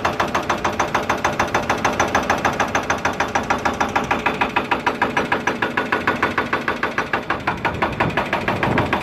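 Hydraulic breaker on a Hitachi excavator hammering concrete in a fast, even rhythm of about six or seven blows a second, with the excavator's engine running under load beneath it.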